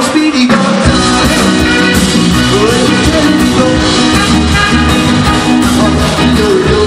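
Live rock and roll band playing electric guitar and drums, with the bass and drums coming in full about a second in and then driving a steady beat.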